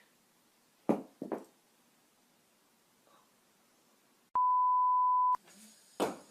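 A steady one-second censor bleep, a single pure tone, with the surrounding audio muted. Two short sounds come about a second in, well before the bleep.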